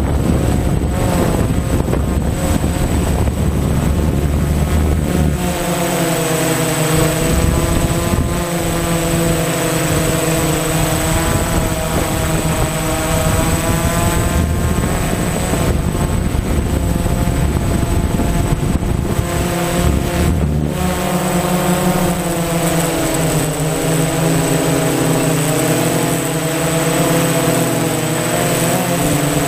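DJI Phantom FC40 quadcopter's motors and propellers whining in flight, heard from the onboard camera, several tones drifting up and down in pitch together as the drone manoeuvres. A low rumble sits under it for the first five seconds and again briefly around twenty seconds in.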